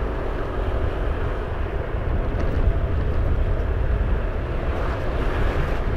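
Steady running noise of a vehicle travelling on an asphalt road: a constant low rumble with a faint engine hum and no sudden changes.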